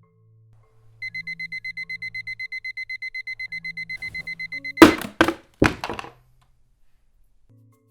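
Electronic phone alarm beeping rapidly, about eight high beeps a second. After nearly four seconds it stops with a few loud thumps.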